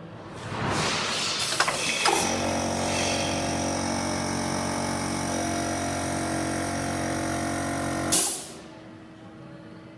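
Welding machine running through a weld cycle: noise builds up over the first two seconds, settles into a steady hum for about six seconds, and stops with a short burst of hiss about eight seconds in.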